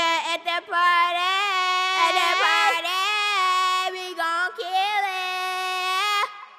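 A high-pitched voice singing long held notes with short slides between them, cut off abruptly about six seconds in and leaving a fading echo.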